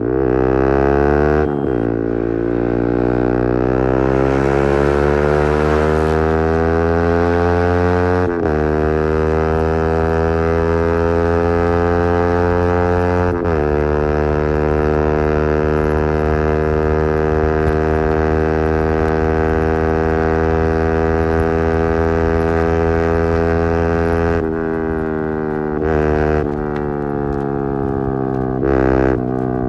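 Yamaha R15 V3's 155 cc single-cylinder engine through an Akrapovič replica exhaust, accelerating hard through the gears: the exhaust note climbs in pitch and drops at upshifts about 1.5, 8 and 13 seconds in, then holds a steady cruise. Near the end the throttle is rolled off and the pitch falls away in several short steps as it downshifts.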